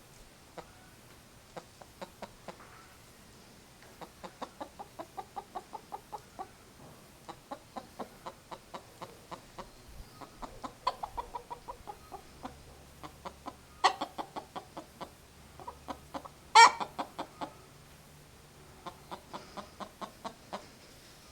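Hen clucking in runs of short, evenly spaced clucks, about four a second, broken by pauses. There are two sharper, louder calls, the louder of them about three-quarters of the way through.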